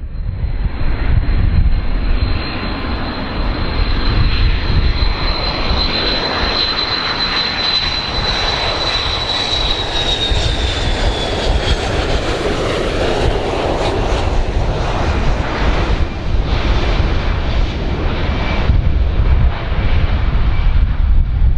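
Boeing 727 on landing approach, its three Pratt & Whitney JT8D turbofan engines making a loud, steady jet roar. A high whine runs over the roar, holds its pitch, then falls away about ten seconds in as the plane passes.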